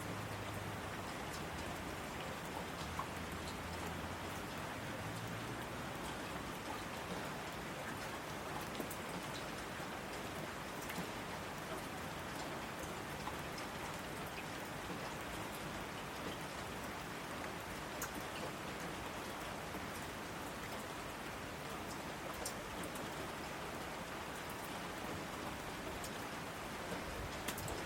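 Steady rain falling, with individual drops ticking sharply on a surface here and there.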